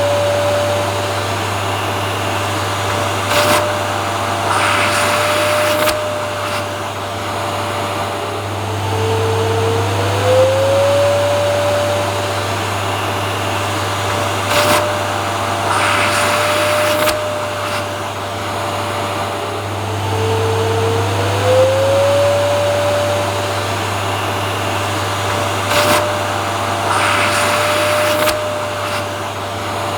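Vacuum cleaner running continuously: a steady rushing noise with a low hum. Its motor whine glides up in pitch and then holds, and the same pattern repeats about every eleven seconds.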